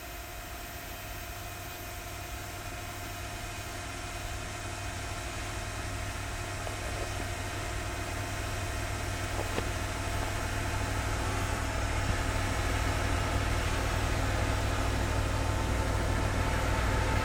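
Locomotive engine running with a steady low hum, growing steadily louder as the train approaches.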